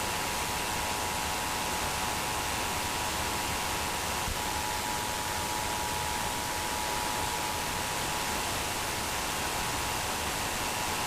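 Loud steady radio static hiss with the Emergency Alert System two-tone attention signal held steady underneath it, the broadcast alarm tone that comes before a test or alert message.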